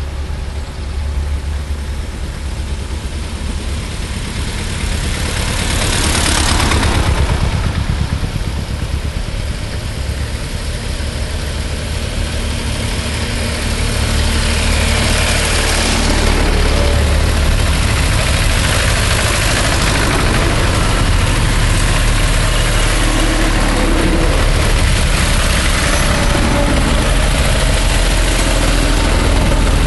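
A procession of vintage farm tractors driving past one after another, their engines running steadily at road pace. It grows louder about six seconds in and again about halfway through as the nearer tractors come close.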